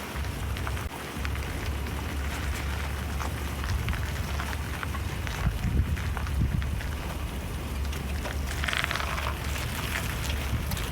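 4x4 vehicle's engine running with a steady low rumble under a hiss of noise. Near the end comes a brief higher-pitched rasp.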